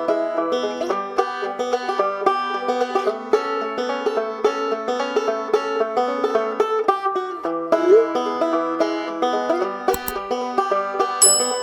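Lively instrumental music of quickly plucked string notes, with a brief sharp click about ten seconds in.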